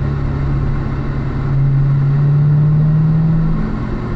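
Chevrolet Corvette Z06's supercharged V8 heard from inside the cabin, pulling steadily at low revs on part throttle. Its drone swells about a second and a half in and eases off near the end.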